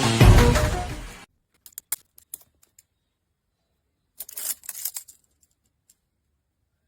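Background music ending with a low boom about a second in, followed by a few faint clicks and a brief rustling burst of handling noise.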